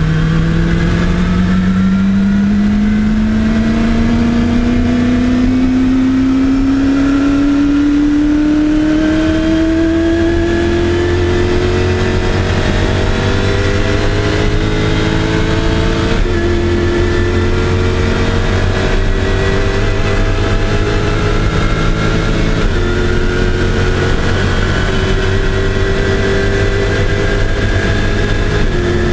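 Land-speed streamliner's engine pulling at full throttle, heard from inside the cockpit, its pitch climbing slowly and steadily as speed builds. The pitch dips slightly just before the end.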